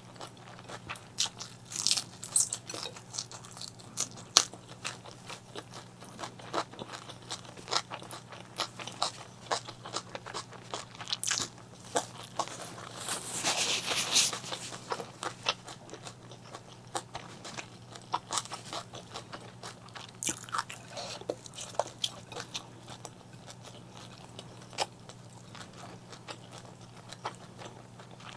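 Close-miked chewing and crunching of food, with many small sharp mouth clicks and a louder crunchy stretch about halfway through. A faint steady low hum runs underneath.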